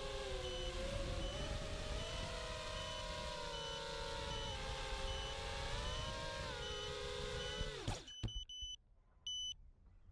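Racing quadcopter's brushless motors and props whining steadily, the pitch drifting a little with throttle, with short high beeps repeating a bit faster than once a second. About eight seconds in, the motors wind down and stop as the quad comes to rest on the ground, and a few more beeps follow.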